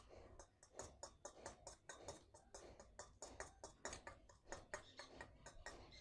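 Faint, quick clicks and scrapes of a metal spoon against a steel bowl, about five a second, as parrot-chick feed is stirred into water.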